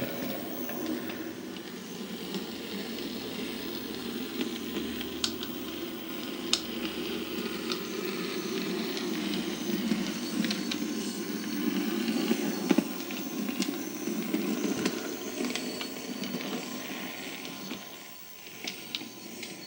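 Model G5 tank locomotive running along the layout's track: a steady hum from its motor and wheels, with scattered clicks as it crosses rail joints and points, growing quieter near the end.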